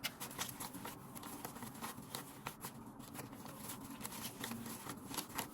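Paper banknotes being counted by hand: a run of soft flicks and rustles as bills are peeled off a stack one after another.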